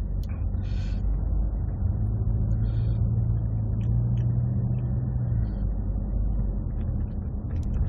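Road rumble inside a moving car's cabin: a steady low drone, with a low hum that comes in about two seconds in and drops away past five seconds. A few soft crackles sound over it.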